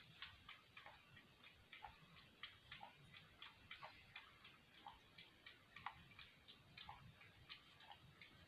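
A cat lapping milk from a bowl: faint, quick clicks of the tongue, about four a second.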